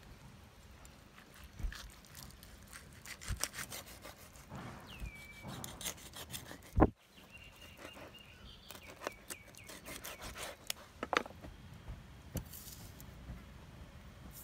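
Knife cutting and scraping raw trigger fish on a cutting board: a run of short scrapes and clicks, with one sharp, much louder chop of the blade onto the board about seven seconds in.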